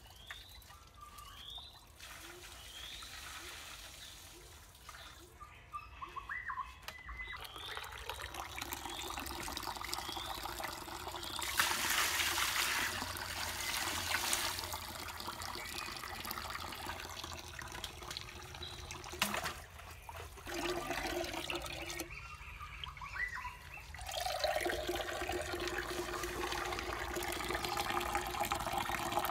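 Water pouring and trickling in stretches, with two short breaks. Small birds chirp in the first few seconds.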